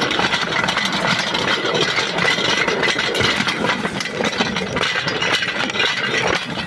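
Small engine of a narrow-gauge rail vehicle running steadily as it moves along light 15-inch gauge track, with a continuous rattle of wheels and loose parts over the rails.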